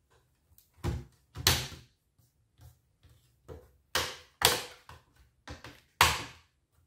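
Plastic top case of an HP ProBook 450 G5 laptop being pressed down by hand, its clips snapping into place with about five sharp clicks and a few fainter ticks between them.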